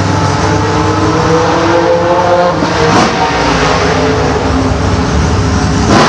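Loud drag-racing engine running hard, its pitch rising and then falling around the middle, with a sharp crack about halfway through.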